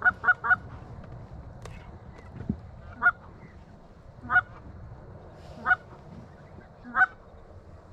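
Goose honks: a quick run of short honks at the start, then single honks about every second and a half.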